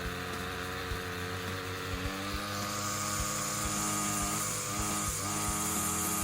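Ryobi string trimmer's small gas engine running steadily after a carburetor replacement, with a higher whine joining in a little under halfway through.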